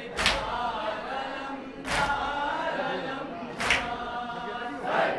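A group of men chanting a nauha (Shia lament) in unison, with three sharp strikes of synchronized chest-beating (matam) about 1.7 seconds apart.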